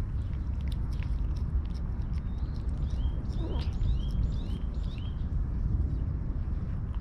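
Two cats licking a lickable cat treat from a squeeze tube, with quick wet smacking and lapping clicks throughout. A bird calls a run of about half a dozen short chirps in the middle, over a steady low rumble.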